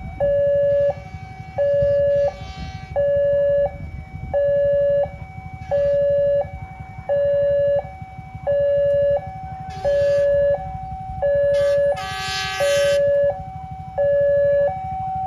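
Railway level-crossing warning alarm sounding a repeating two-tone signal, a short higher note then a longer lower one, about once every second and a half, warning that a train is approaching and the barrier is closing. A brief louder burst of a different, higher sound cuts in about twelve seconds in.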